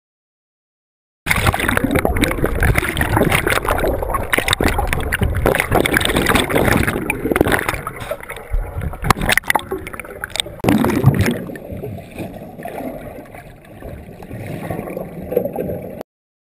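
Underwater sound of a submerged escape-training module: air bubbles rushing and gurgling, with knocks and bangs from bodies and hands striking the frame. It cuts in about a second in, turns quieter and duller past the middle, and cuts off sharply near the end.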